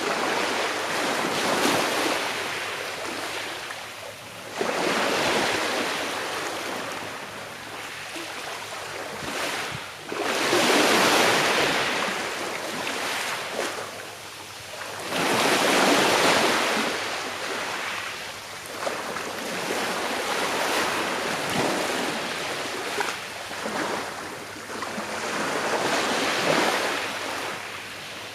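Small sea waves breaking and washing up the shore, each swell rising and falling over a few seconds, with the strongest two about a third and halfway through.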